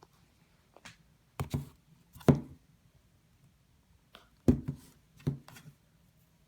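A series of short, sharp knocks and clicks at irregular spacing, some in quick pairs. The loudest come about two seconds and four and a half seconds in.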